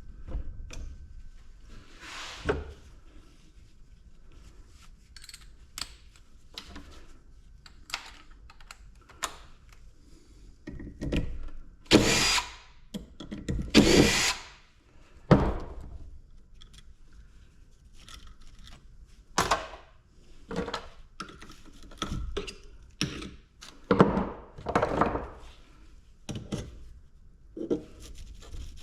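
Irregular metal knocks and clanks of hand tools working on a dismantled compressor, with a few louder, longer scraping strokes about twelve and fourteen seconds in.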